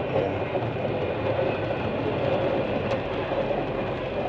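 Steady road noise inside a car's cabin while driving on a rain-soaked road: tyres hissing on wet pavement under heavy rain.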